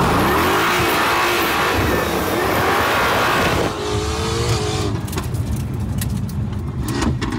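Mercedes-AMG GT S twin-turbo V8 at full throttle on a hard launch, its note rising, with a gear change about three and a half seconds in. About five seconds in the revs drop and a string of sharp pops follows.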